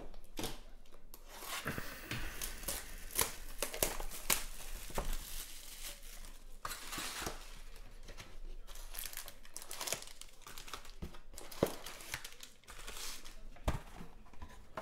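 Crinkling and tearing of wrapping as a Panini Prizm football card box is opened, with many sharp rustles and clicks. The foil card packs crinkle as they are lifted out and stacked.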